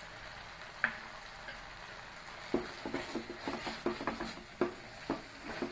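Wooden spatula scraping and stirring a thick spice-and-coconut-milk paste in a non-stick frying pan, with the paste frying gently underneath. There is a single click a little under a second in, then from about halfway the spatula makes quick, uneven strokes across the pan bottom, scraping so the paste does not catch.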